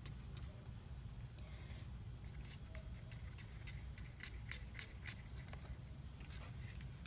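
Wooden craft stick stirring runny paint mix in small paper cups: faint, scattered light clicks and scrapes of the stick against the cups, over a steady low hum.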